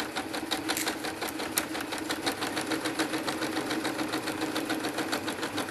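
Electric sewing machine stitching a seam at a steady speed: a constant motor hum under rapid, even needle clicks.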